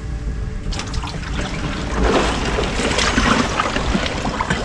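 Ice water sloshing and splashing, with ice cubes knocking together, as a person lowers himself into a chest freezer used as an ice bath. The sloshing grows louder about two seconds in as he sinks into the water.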